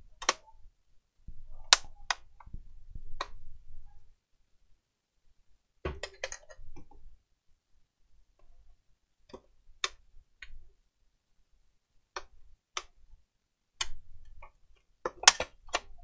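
Irregular sharp clicks and light clinks, about fifteen of them with small clusters in the middle and near the end: small screws, a screwdriver and plastic parts being handled as a PlayStation 4 console is taken apart.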